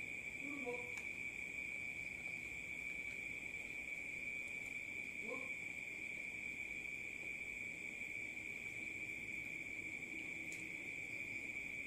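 Insects trilling steadily at one high pitch throughout, with two brief faint vocal murmurs from the eater, one near the start and one about five seconds in.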